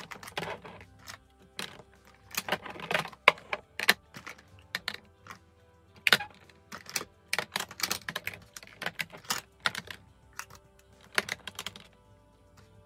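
Makeup compacts and pots being set down and shuffled into plastic storage trays: irregular clicks and clacks of plastic on plastic, several a second at times, stopping near the end.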